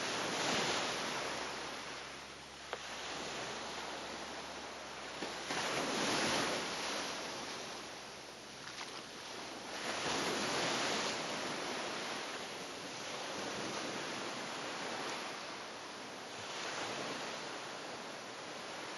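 Waves washing onto a shore, a hiss of water that swells and falls away every four to five seconds.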